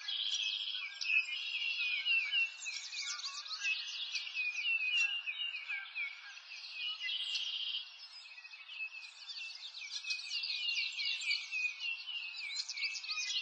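A dense chorus of birds chirping and singing over one another, many short quick phrases at once, over a faint background hiss.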